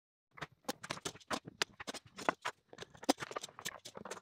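Metal bar clamps being loosened and taken off freshly glued wooden trays: a fast, irregular run of clicks, clanks and knocks as the clamp jaws slide on their bars and the clamps and wood pieces are handled.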